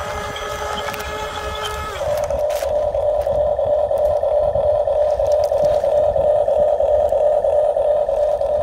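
Electric motors and gearboxes of a Huina 1550 RC excavator whining steadily. About two seconds in the pitch drops and a louder, steady buzz takes over.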